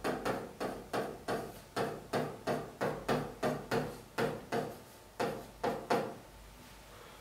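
A stylus tapping and scraping on the hard glass of an interactive display as letters are written, about three short knocks a second, stopping about six seconds in.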